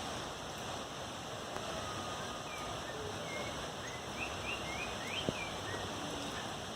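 Several short bird chirps over a steady rushing hiss, with a single click about five seconds in.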